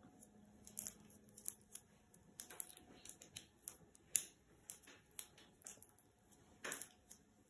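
Typing on a laptop keyboard with latex-gloved fingers: quiet, irregular key clicks with short pauses, and a louder cluster of clicks near the end.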